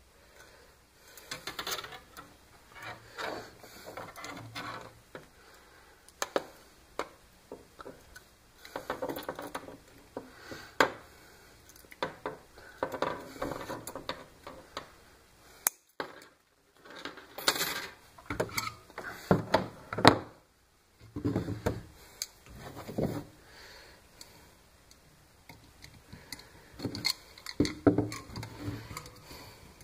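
Irregular clattering and clicking of tools and small metal parts being handled on a wooden workbench.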